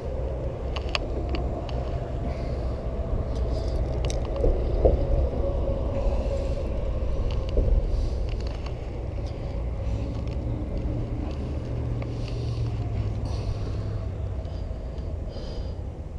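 A steady low outdoor rumble, with a faint wavering tone over it and a few small clicks and rustles of handling.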